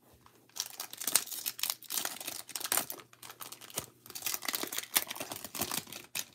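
A 2022 Bowman baseball card pack's wrapper crinkling in a dense run of sharp crackles as it is handled and torn open.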